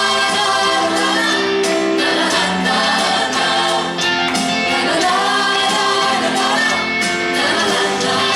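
Pop song playing: a band with singing voices, no clear words sung.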